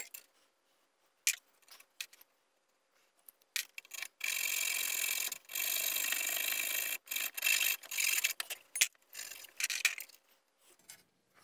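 Small hand file rasping along the edges of a slot cut in an aluminium pipe: a few light clicks of tools being handled, then two long strokes about four seconds in, followed by several shorter strokes.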